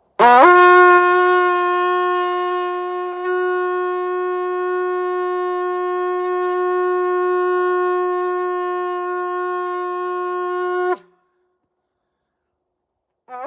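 A shofar sounded in one long, loud held blast lasting about eleven seconds: the note scoops up to pitch at the start, holds steady, and cuts off abruptly.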